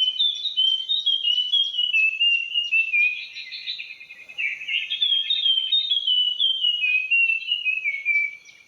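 Puff-throated babbler singing its loud morning song: two long runs of clear whistled notes, each stepping down in pitch, the second starting about halfway through. A faint steady high insect drone runs underneath.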